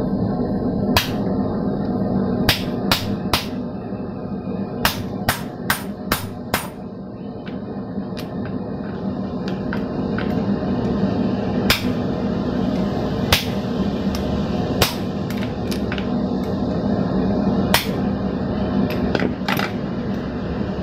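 Hand hammer striking a handheld hot slitter driven into a glowing block of 1050 medium-carbon steel on an anvil, slitting the eye of a hammer head. The blows are sharp metallic strikes, some in a quick run of five, the rest a second or two apart, over a steady low hum.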